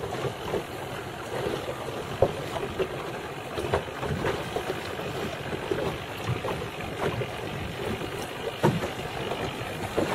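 Wind buffeting the microphone on open water, with water lapping and slapping irregularly against the boat's hull.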